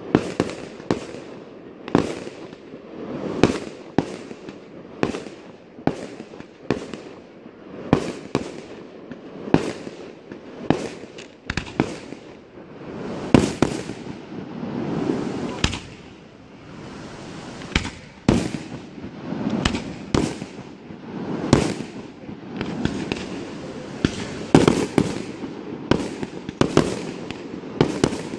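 Aerial firework shells bursting one after another in a pyrotechnic display, a sharp bang about once a second. A noisy wash of crackle and rumble fills the gaps and swells around the middle.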